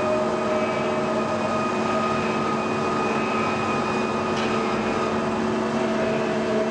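Mazak Integrex multi-tasking CNC turning centre running under power: a steady mechanical hum carrying several constant whining tones, with a faint tick about four and a half seconds in.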